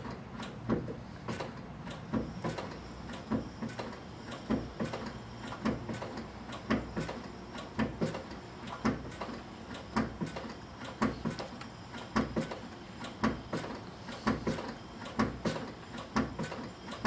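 Clutch slave cylinder and release fork of an Infiniti G35 clunking in pairs about once a second as the clutch pedal is slowly pumped, building hydraulic pressure while the clutch is bled.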